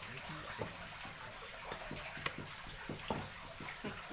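Water pouring steadily from a hose into a large pot, with a few light knocks of a big knife against a wooden chopping block as it cuts through giant snakehead (toman) fish.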